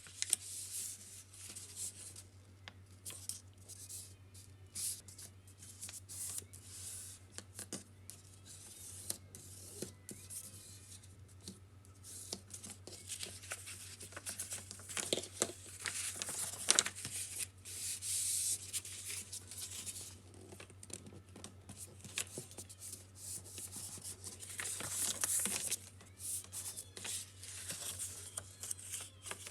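Close-up, irregular scratchy cutting strokes of a blade working through craft material, with louder stretches in the middle and again near the end, over a steady low hum.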